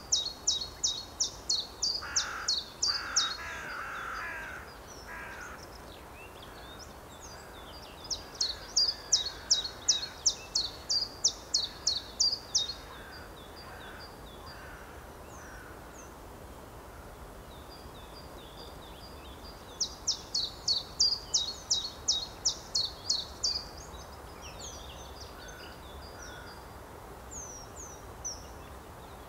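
Small songbird singing three runs of quick, thin, high falling notes, about three to four a second. Each run lasts around four seconds, with pauses between them. Some fainter, lower calls come in during the first run.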